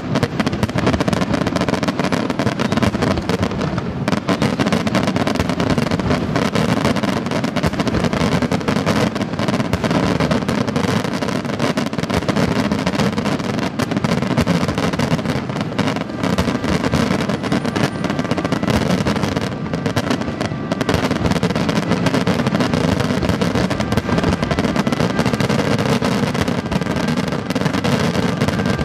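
Daytime fireworks going off in a dense, unbroken barrage of rapid bangs and crackling.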